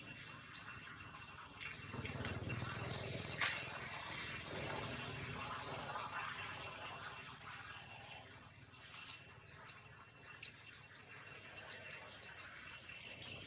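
A bird chirping: short, very high chirps in quick runs of two to four, repeated every second or so, over a faint steady high whine.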